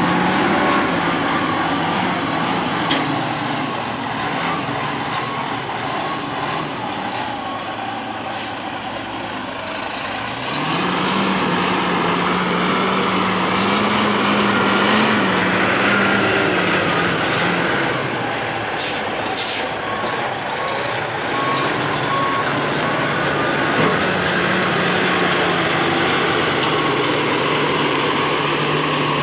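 Semi-truck's diesel engine running as the tractor manoeuvres a container trailer, its pitch and loudness stepping up about ten seconds in and holding there. A repeating reversing beeper sounds faintly over it.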